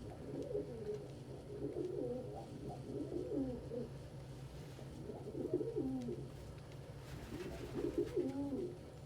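Domestic pigeons cooing in three wavering bouts, with short pauses between them.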